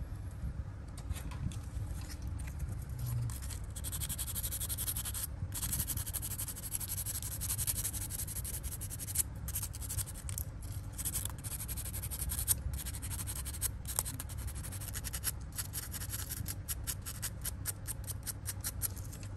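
Quick, scratchy scraping strokes of hand abrasive work on a small part, starting a few seconds in and running with several brief pauses over a low background hum.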